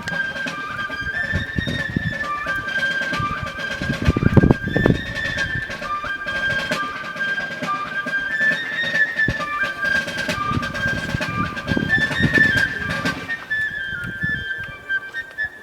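A flute-like wind instrument playing a quick melody of short held high notes, over an uneven low rumble that swells twice.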